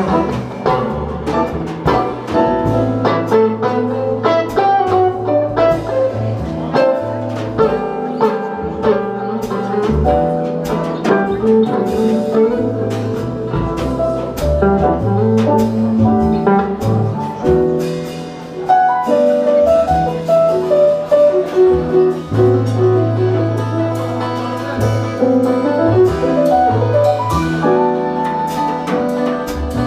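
A live jazz combo playing an instrumental passage: double bass holding long low notes, a drum kit with frequent cymbal and drum strikes, and electric keyboard and guitar playing chords and lines over them.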